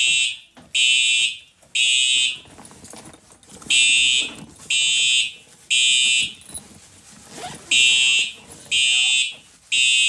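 Simplex TrueAlert 4906-9126 fire alarm horn sounding harsh, buzzy blasts in the temporal-three pattern: three half-second blasts about a second apart, then a pause, repeating three times. This is the standard evacuation signal.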